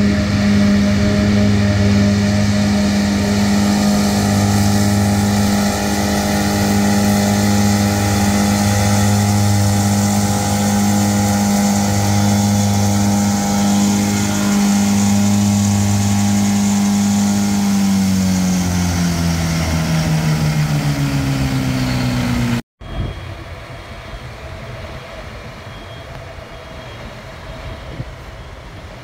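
Krone BiG M 450 self-propelled mower conditioner running steadily at working revs, then its engine note falls over a few seconds as it throttles back. It cuts off abruptly about three quarters of the way in, and a quieter, rougher engine sound follows.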